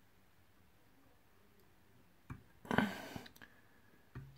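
Quiet room tone broken by a few light clicks and a short rustle of hands handling fly-tying tools and thread, with a soft knock near the end.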